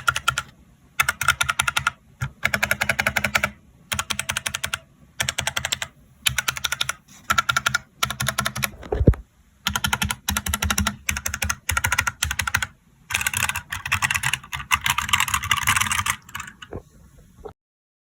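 Snpurdiri 60% wired mechanical gaming keyboard being typed on: runs of rapid key clacks, each a second or so long with short pauses between, and one dull thump about halfway through.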